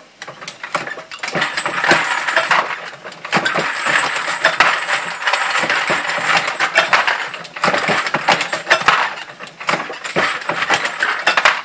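Dillon 650 progressive reloading press being worked: a steady run of metallic clinking and clicking from brass cases and the press, coming in swells a few seconds long with short lulls between.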